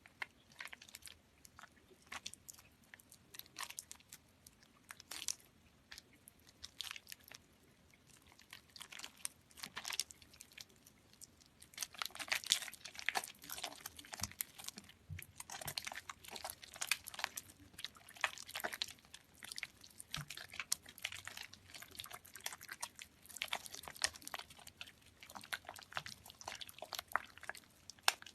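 Soaked soap being squeezed by hand: a wet, crackly squishing made of many small crunches, sparse at first and coming in dense runs from about halfway through.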